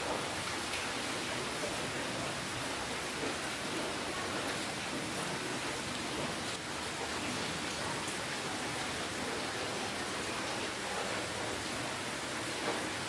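Steady rainfall: an even hiss of rain with scattered drops pattering on a surface.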